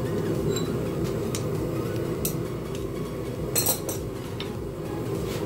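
Light clinks of steel tongs and a steel workpiece against an anvil, with one louder metallic clank about three and a half seconds in as the glowing-hot bottle-opener blank is set down. A steady low rumble runs underneath.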